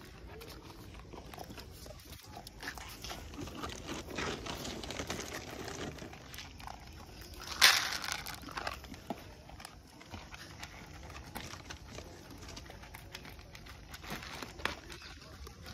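Dogs eating dry kibble from plastic bowls: scattered crunching and small clicks, with one louder sharp clack a little past halfway.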